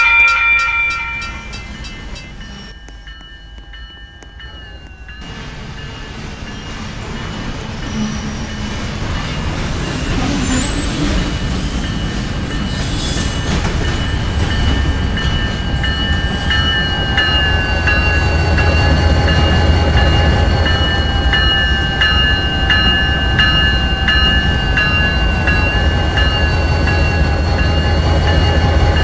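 A train horn chord trails off in the first couple of seconds. Then a passing train builds up: a low rumble, a steady high-pitched squeal of wheels on the rails, and a regular clacking of wheels over rail joints that grows louder.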